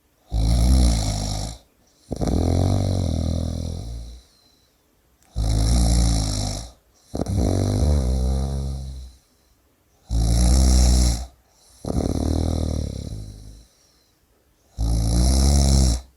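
A person snoring in a steady rhythm: a loud snore on each breath, followed by a longer, quieter breath that fades away, then a short pause. This happens four times, about every five seconds.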